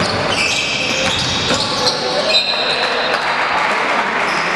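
Basketball play on a hardwood court: sneakers squeaking in many short, high squeaks, with the ball bouncing and voices calling out in the hall.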